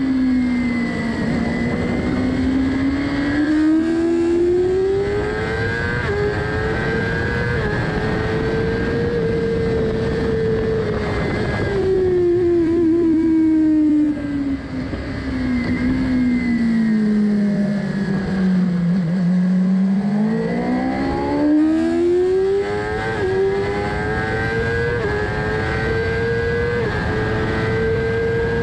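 Sport motorcycle engine heard from on board at speed over heavy wind rush. The engine pitch climbs out of a bend, holds high, drops over several seconds as the bike slows for a corner, then climbs again under hard acceleration to around 200 km/h.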